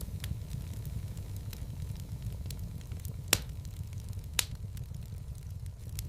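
Wood fire burning in a fireplace: scattered small crackles over a steady low rumble, with two loud sharp pops about three and four and a half seconds in.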